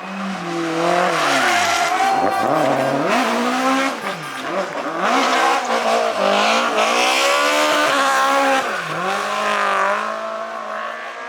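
Rally car engine revved hard, its pitch dropping and climbing again several times as the driver lifts off and gets back on the throttle; it fades away near the end.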